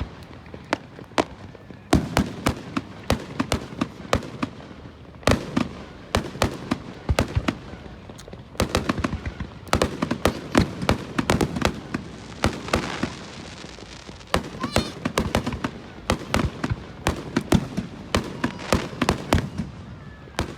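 Fireworks going off: many sharp bangs and crackling pops in quick clusters, with brief lulls between volleys.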